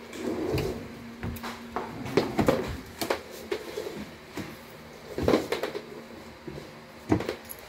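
Cabinet drawers pulled open and pushed shut on metal drawer slides, the runners rattling as they roll, with a series of sharp knocks as the drawers hit their stops.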